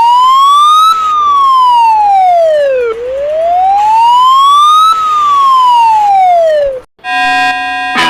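Siren wailing, its pitch sweeping slowly up and down twice, each rise or fall taking about two seconds. About seven seconds in it cuts off and a held chord of steady tones begins, with a note struck near the end.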